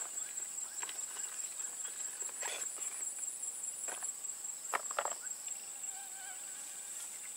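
Insects trilling steadily at a high pitch, with a few short, sharp chirps or ticks scattered through.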